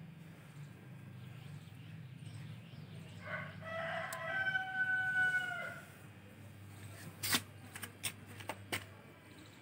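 A rooster crows once, a single held call beginning about three seconds in and lasting about two and a half seconds. Near the end come four sharp snips of pruning shears cutting okra pods.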